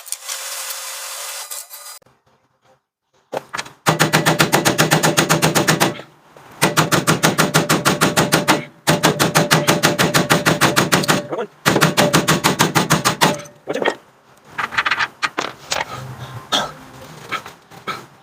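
Pneumatic air hammer running in four bursts of about two seconds each, a fast even rattle of blows, driving the old spring bushing out of the frame eye.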